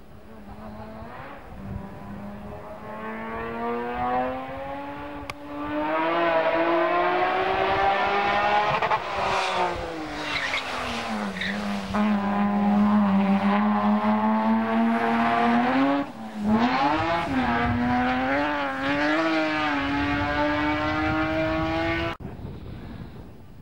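BMW E21 sports sedan race car engine at full throttle, growing louder and rising in pitch as it approaches. It drops in pitch about halfway through, then climbs again with a brief break in the sound a few seconds later. The sound cuts off suddenly near the end.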